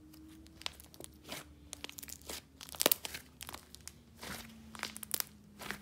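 Thick white clay slime being folded and squeezed in the hands, giving off irregular crackling and popping squelches as air pockets burst, the loudest pop a little under three seconds in.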